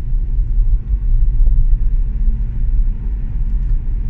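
Steady low road rumble heard inside the cabin of a Hyundai Kona Electric at about 30 mph, mostly tyre and road noise with no engine note. The car is easing off the accelerator under regen braking.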